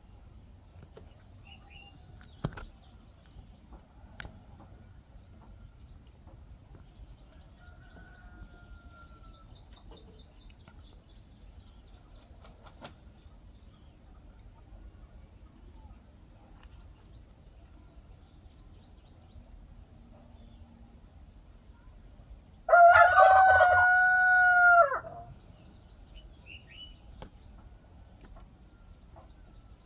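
A rooster crowing once, a single loud call held about two seconds, about three-quarters of the way through. Before and after it there is only a faint background: a steady high hiss, a few faint bird chirps, and two sharp clicks in the first few seconds.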